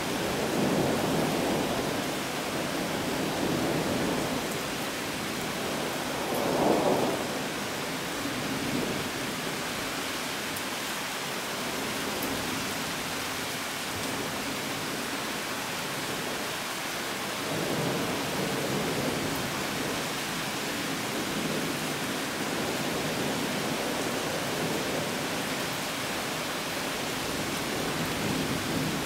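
A summer downpour with a steady hiss of rain and thunder rolling in several times. The loudest peal comes about seven seconds in, and further rumbles follow later on.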